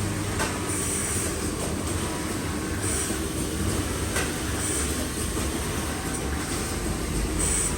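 Garment-factory machinery running steadily: a continuous mechanical clatter with faint ticking and a brief high hiss every couple of seconds.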